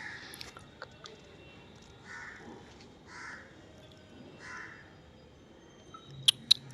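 Crows cawing in the background: four or five short, hoarse caws about a second apart, followed near the end by two sharp clicks.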